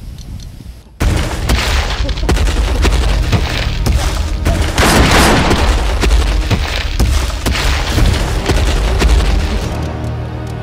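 Loud action-film sound effects that start suddenly about a second in: repeated booms and sharp cracks over a deep rumble, with a dense noisy burst around the middle.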